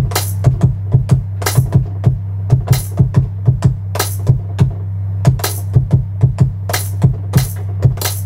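Hip-hop beat played back from an Akai MPC Live II sampler: a held, deep 808 bass note under quick hi-hat ticks, with a snare or clap hit about every second. It is heard from the room speakers rather than a direct line.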